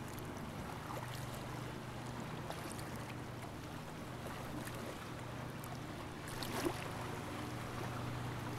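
Sea kayak being paddled on calm seawater: gentle lapping and splashing of water against the hull and paddle, with one brief louder splash about seven seconds in, over a steady low hum.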